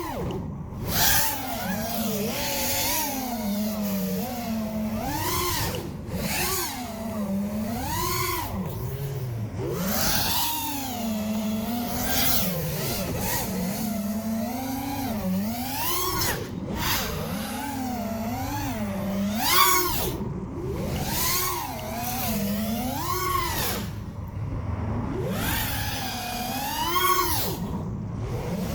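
FPV racing quadcopter's brushless motors and propellers whining, the pitch rising and falling constantly with the throttle during aggressive flying.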